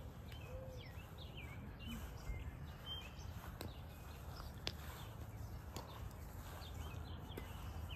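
Badminton rackets striking a shuttlecock during a rally, a few sharp taps about a second apart, over birds chirping and a steady low background rumble.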